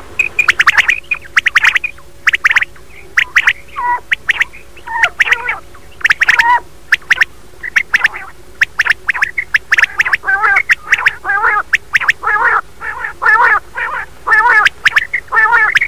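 Recorded quail calls used as a hunting lure: short, sharp calls repeated rapidly over and over. From about ten seconds in they are joined by lower, wavering calls.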